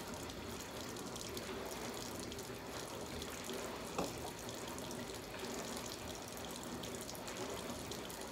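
Water running steadily, with one short knock about four seconds in.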